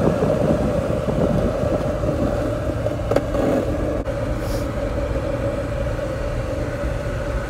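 Ford Ranger pickup driving along a dirt forest road, heard from inside the cab: a steady rumble of engine and tyres, with a brief knock about three seconds in.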